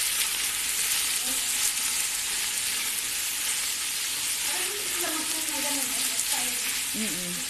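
Chicken breast and onion frying in olive oil in a pan, sizzling steadily. Faint voices can be heard in the background in the second half.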